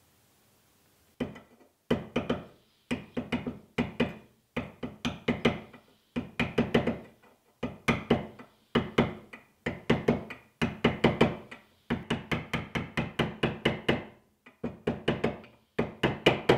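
Hammer blows driving a threaded insert into the drilled aluminium casting of a Myford ML7 lathe as an interference fit. The sharp, ringing taps start about a second in and come in quick runs of several blows with short pauses between.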